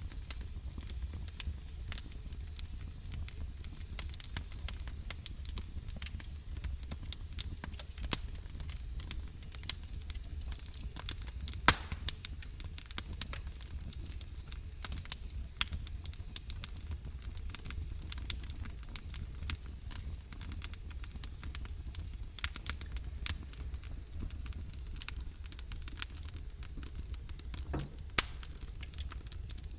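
Logs burning in a fireplace, crackling with frequent small irregular pops and two louder pops, one about twelve seconds in and one near the end, over a steady low rumble.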